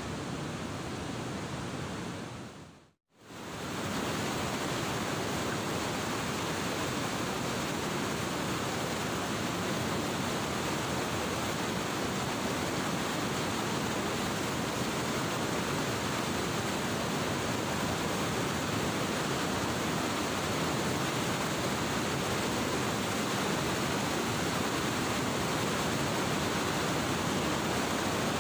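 Steady rush of brown floodwater churning through and below a river barrage's gates. The sound drops out briefly about three seconds in, then returns unchanged.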